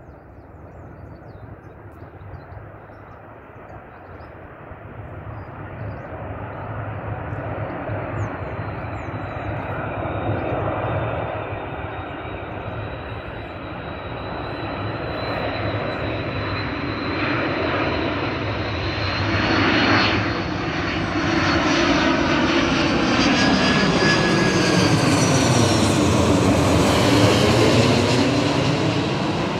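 Iberia Airbus A330 jet airliner on final approach with landing gear down, its engine noise growing steadily louder as it comes in low and passes overhead. A thin high whine joins the rumble partway through, and near the end the sound sweeps and swirls as the aircraft goes over.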